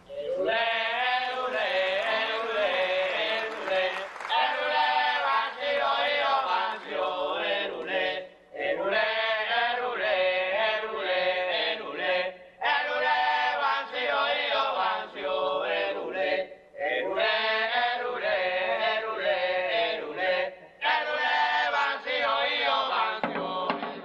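Chant-like singing from a ballet's recorded score, in repeated phrases of about four seconds with short breaks between them.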